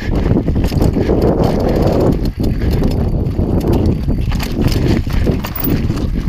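Mountain bike rolling fast down a rocky, loose-stone trail: tyres crunching and clattering over stones, the bike rattling over the rough ground, with wind buffeting the microphone. It gets louder at the start and stays loud.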